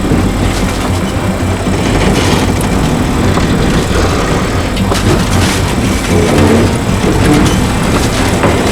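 Heavy diesel recovery equipment, a tow truck and an excavator, running steadily under load as they drag a wrecked transport trailer up a snowbank.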